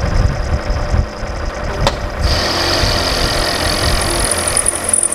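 Milling machine spindle running as an end mill cuts the cast iron of a Chevy 292 cylinder head in small passes, a steady mechanical rumble. A sharp click comes a little under two seconds in, then a high steady whine from the cut sets in.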